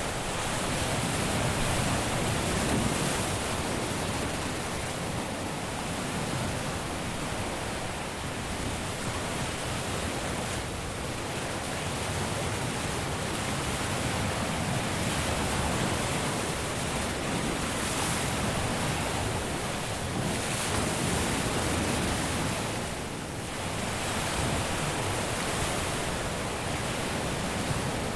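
Caribbean surf washing onto a beach: a steady wash of breaking waves that swells and eases gently, with one brief lull about 23 seconds in.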